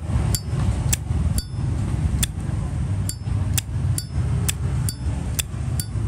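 Zippo lighter lid flicked open and snapped shut over and over: about a dozen sharp metallic clicks, roughly two a second. It is a click that sounds fairly good.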